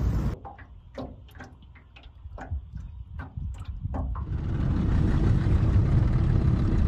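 Small outboard motor running steadily on a jon boat under way, rising in about four seconds in. Before it comes a quiet stretch with scattered short, sharp ticks.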